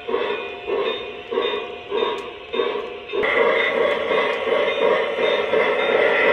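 Model locomotive's bell ringing in regular strokes, a bit under two a second. About three seconds in, a steady, louder sound from the approaching train takes over.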